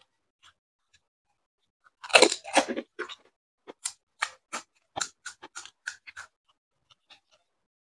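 Close-up crunching and chewing of a crisp fuchka (panipuri) shell filled with potato and tamarind water. A loud double crunch comes about two seconds in, then crisp crackling chews at about three a second.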